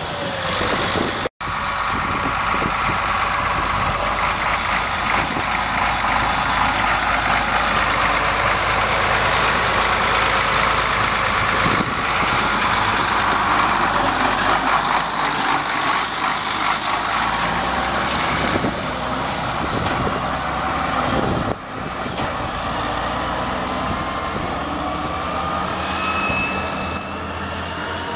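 Case 3594 tractor's 8.3-litre six-cylinder turbo diesel engine running steadily. Near the end its pitch rises as the tractor pulls away under power. The sound cuts out sharply for a moment about a second in.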